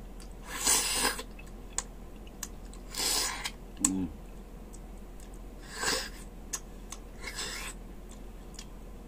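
Marrow being sucked out of a cut beef bone: four loud slurps, spaced a couple of seconds apart, with a brief hum from the eater's voice about four seconds in.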